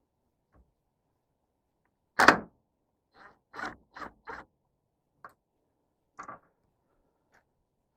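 A loud knock, then a quick run of four lighter knocks and single knocks and clicks spread out after it: hard objects being handled and set down.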